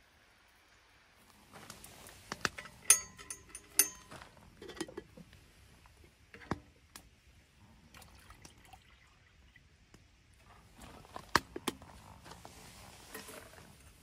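Clinks and knocks of small items being handled at close range. A burst of sharp clicks comes in the first few seconds, with a brief ringing tone, then single clicks scattered through the rest.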